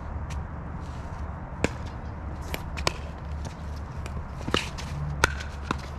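Pickleball paddles hitting the hard plastic ball in a doubles rally: several sharp pops at uneven intervals, the loudest about five seconds in, with shoes scuffing on the hard court between hits.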